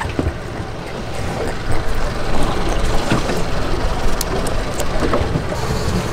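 Steady wind and water noise on an open boat deck, with a few light knocks.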